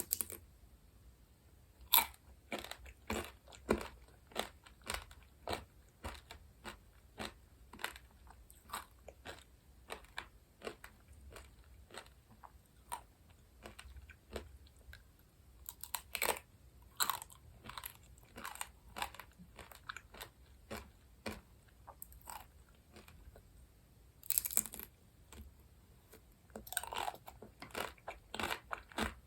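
Close-miked eating of candy and ice-cream treats: a steady run of crisp bites and crunchy chewing, with louder crunches about two seconds in, around the middle, and near the end.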